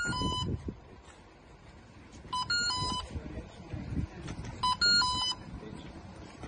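Electronic beeps from a mobile phone held to a person's forehead as a mock temperature scanner: three short runs of beeps at two pitches, about two seconds apart.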